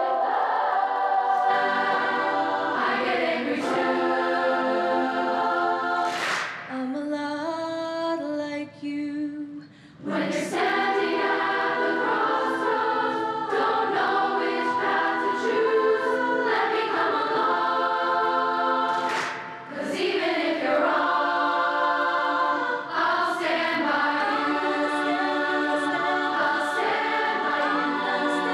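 A choir singing sustained chords. The sound thins to a few voices for a couple of seconds about a quarter of the way in, then the full choir comes back.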